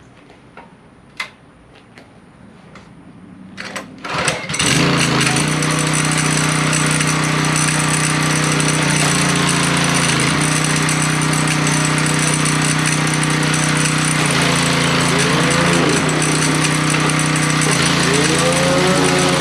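Simpson gas pressure washer's engine being started: a few short strokes, then it catches about four and a half seconds in and runs steadily. A clanking comes from inside the machine as it runs, the first sign of the internal failure that soon locked the engine up.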